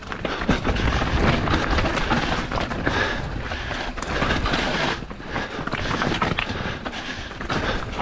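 Mountain bike descending a rocky trail: tyres crunching over loose stones and the bike rattling, a dense clatter of small knocks with a low rumble underneath.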